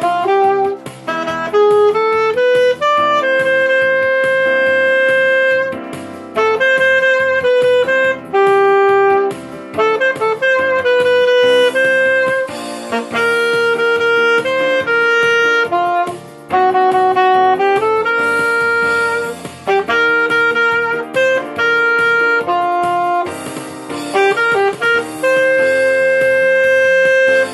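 Alto saxophone playing a pop melody from sheet music, quick phrases broken by long held notes.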